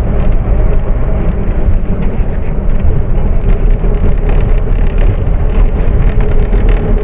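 Loud, steady rumble of a moving road vehicle, heavy in the low end.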